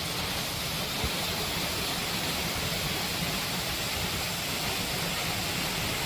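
Shallow mountain stream running over sand and stones: a steady hiss of flowing water.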